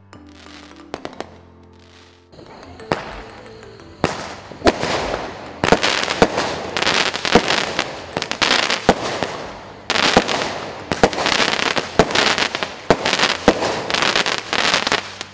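Consumer firework battery firing: after a rising hiss, a rapid run of sharp bangs with crackle from about four seconds in that keeps going to the end, with background music faintly underneath.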